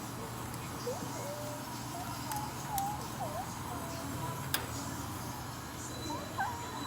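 Mynah bird giving a series of short swooping whistled notes, some rising and some dipping, with a sharp click about four and a half seconds in.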